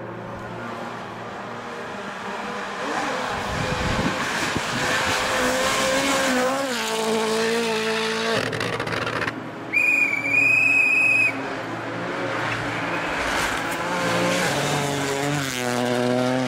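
Turbocharged four-cylinder rally cars driven flat out on a stage: engines revving hard, their pitch climbing and then dropping at gear changes, over a haze of tyre noise. About ten seconds in, a shrill, steady high tone sounds for about a second and a half.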